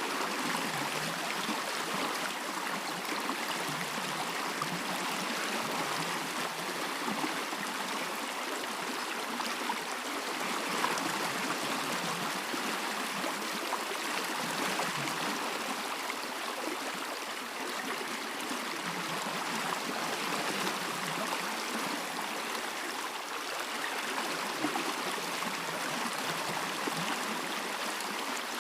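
A stream running steadily, its water rushing and gurgling in an even wash of sound.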